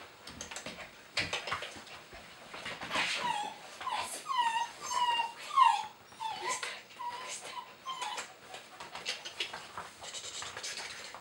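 Border collie whining in a run of short, high, falling whines for about four seconds in the middle, amid scattered clicks and scuffling.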